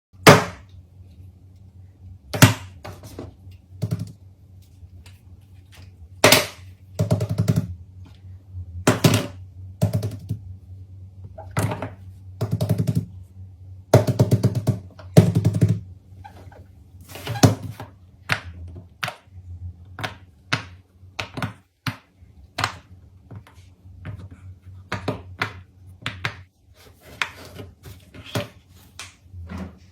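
Hands handling and tapping small objects: a long series of sharp clicks and knocks with several quick rattling runs of clicks, over a steady low hum.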